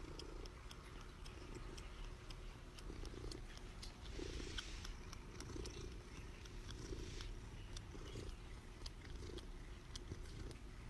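Domestic cat purring, faint and continuous, swelling and fading about once a second with each breath.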